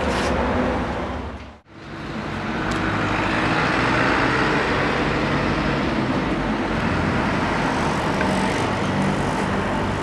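A loud rush of noise that cuts out abruptly about one and a half seconds in, then steady street traffic noise from passing cars.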